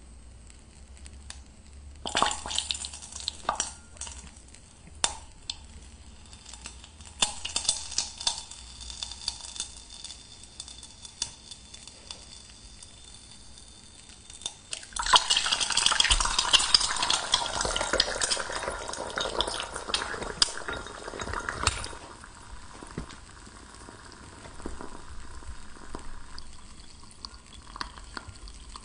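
An egg cracked by hand over a glass beaker, a few sharp cracks of shell, then the egg dropping into hot oil in the beaker and sizzling loudly for about seven seconds. After that it settles to a quieter frying crackle.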